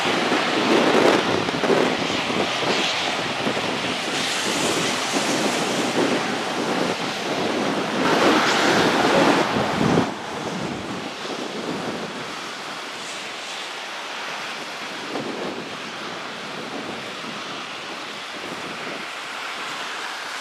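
Wind buffeting the camera microphone, a rough rushing noise that swells in gusts, then drops to a quieter, steadier rush about halfway through.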